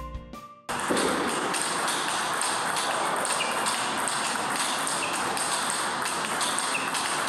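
Table tennis rallies: celluloid-type balls struck by bats and bouncing on tables in a run of sharp pings and taps, from several tables playing at once over a steady room hiss. A tail of background music fades out in the first second before the rallies begin.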